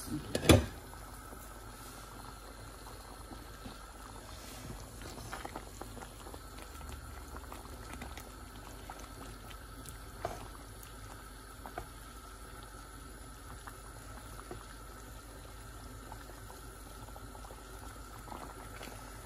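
Chicken and kidney bean curry bubbling in an open frying pan, with a sharp knock about half a second in as the glass lid is set aside. Later come a few light clicks of a plastic spatula stirring.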